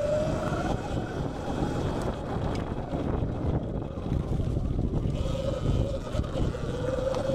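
Sur-Ron Light Bee X electric dirt bike's motor whining under way on a dirt trail, over a steady rumble of tyres and wind buffeting the microphone. The whine rises at the start, fades in the middle and comes back, rising again, near the end.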